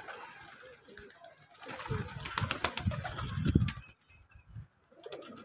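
Domestic pigeons cooing: low, throaty coos, loudest between about two and four seconds in, with a few short sharp clicks among them.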